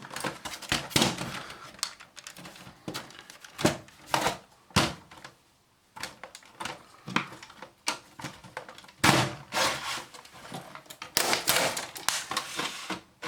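Plastic casing of a satellite receiver being handled and pried at: irregular clicks, knocks and scrapes of plastic parts, with a brief pause about five seconds in and a busier run of knocks near the end.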